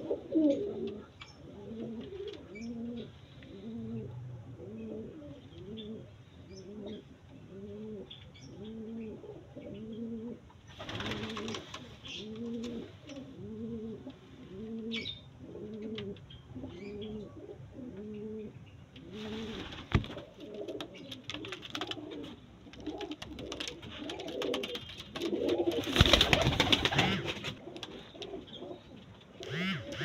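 Domestic pigeons cooing in a steady run of low coos, about one a second, each rising and falling. A few louder rustling bursts break in, the loudest about 26 seconds in.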